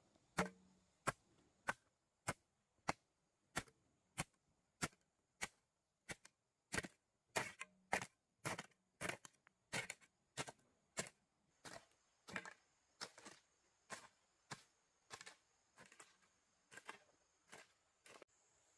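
Wood being chopped with a blade: a steady run of sharp strikes, about one and a half a second, with no let-up.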